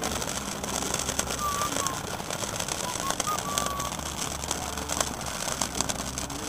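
Fireworks crackling and popping at a distance, with a few short whistles.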